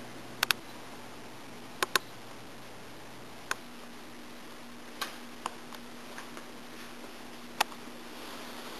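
Sharp, separate clicks in a quiet room. Two quick pairs come in the first two seconds, then single clicks at uneven gaps, over a faint steady hum that shifts higher about three and a half seconds in.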